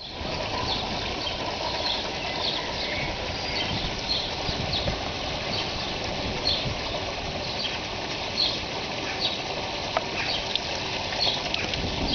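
Steady wash of moving pool water, with many short, high chirps of small birds scattered over it.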